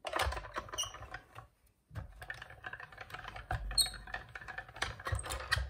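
Hand-cranked die-cutting machine rolling acrylic cutting plates with a steel die and cardstock through its rollers: rattling and clicking of the crank and plates, with a brief pause about a second and a half in, a few louder knocks and a couple of short high squeaks.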